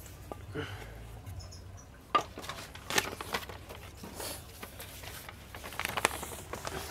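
Irregular handling noise from a knife and sharpening gear: a few sharp knocks and short scraping and rustling sounds, with paper rustling near the end.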